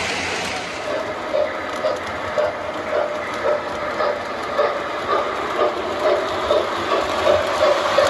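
O gauge model train running on its track: a steady running noise with a regular click about twice a second, the clicks growing more distinct toward the end.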